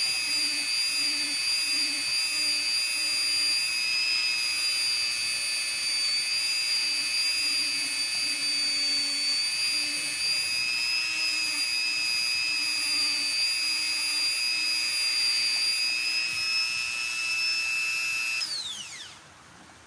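Small handheld rotary tool with a grinding stone running at a steady high whine, grinding down the worn valve-contact tips of diesel rocker arms to restore proper valve clearance. Near the end it is switched off and the whine falls in pitch and dies away.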